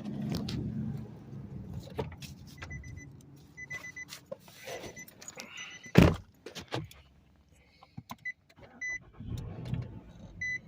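Nissan Altima's engine starting and running, its cylinder-4 ignition coil just replaced to cure a P0304 misfire. Short repeated chime beeps sound from a few seconds in, with a loud thump about six seconds in.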